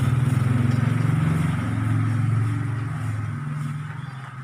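A vehicle engine running with a low, steady pulse, then fading away about three seconds in.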